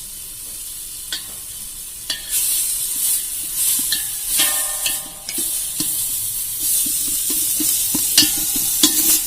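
Onion-tomato masala with freshly added crushed chillies sizzling in a pot as a ladle stirs it, knocking and scraping against the pot a few times a second. The sizzle swells about two seconds in, and a brief metallic ring sounds about halfway.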